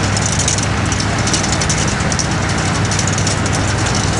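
Large farm machine's diesel engine running steadily, a low hum under a constant rushing hiss.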